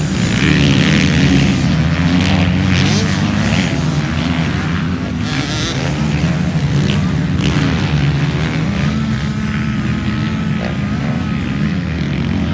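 Motocross bikes' engines running round a sand track, revving up and down as the riders accelerate and back off.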